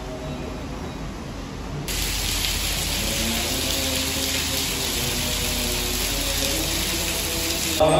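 Heavy rain pouring down onto a stone-paved courtyard: a dense, steady hiss that starts abruptly about two seconds in and stops just before the end. Faint Buddhist chanting is heard before the rain starts.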